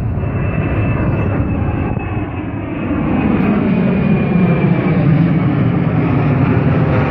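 Twin-engine jet airliner passing overhead: loud steady jet engine noise with a deep rumble, and a faint high whine that slowly falls in pitch. The rumble grows louder about three seconds in.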